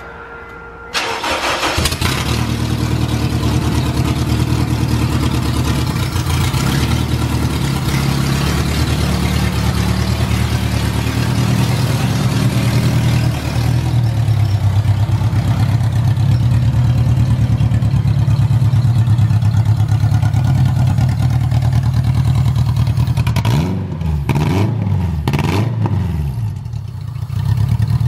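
A Honda K-series four-cylinder engine swapped into a Civic wagon starts about a second in, then runs steadily at low revs while the car backs out under its own power. Near the end it is revved up and down a few times.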